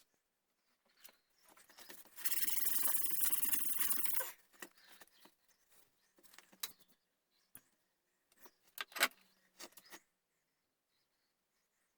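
Hand-tool work on a wooden gunstock: about two seconds of steady scraping about two seconds in, followed by scattered light clicks and taps.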